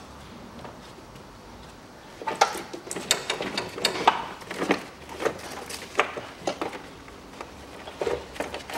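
Car wiring harness and its plastic connectors being handled in the engine bay: an irregular string of sharp clicks and light knocks starting about two seconds in.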